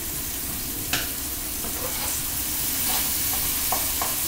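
Chopped onions frying in olive oil in a skillet on medium-high heat, sizzling steadily. A spatula stirs them: one knock against the pan about a second in, and a few light taps near the end.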